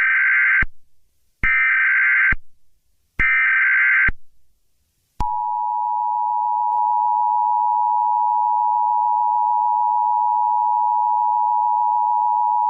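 Emergency Alert System tones: three short bursts of SAME header data tones about a second and a half apart. Then, about five seconds in, the steady two-tone EAS attention signal starts, marking the start of an emergency alert broadcast.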